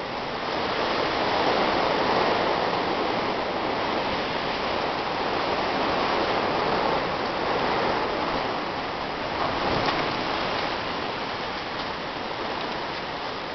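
Blizzard wind blowing in gusts: a steady rushing noise that swells a couple of seconds in and again about ten seconds in.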